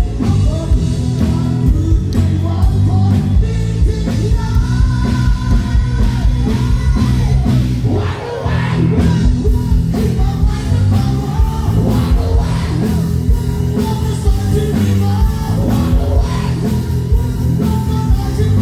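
Live rock band played loud through stage speakers, a male singer singing over keyboard and a heavy bass line.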